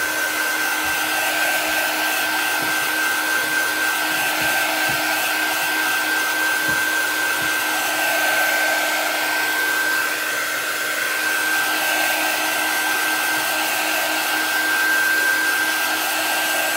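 Handheld craft heat tool running, blowing steadily with a high-pitched whine, drying freshly applied chalk paste. Its rush swells and eases slightly as it is swept over the piece.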